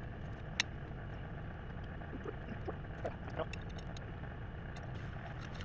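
Tractor engine idling steadily, with scattered faint clicks and one sharp click about half a second in.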